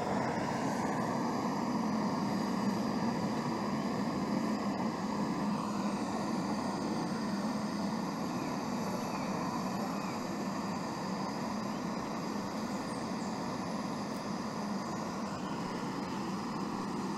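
Canister gas camp stove burning at full flame with a steady roar, heating a kettle of water.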